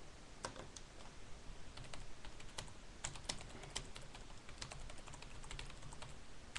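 Typing on a computer keyboard: a run of soft, irregular key clicks.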